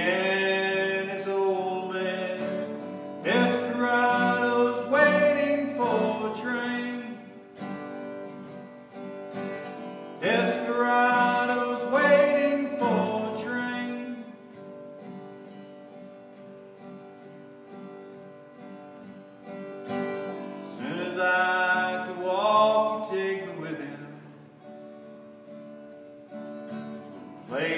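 Acoustic guitar strummed and picked, with a man singing to it in three loud phrases. The guitar rings on alone between them.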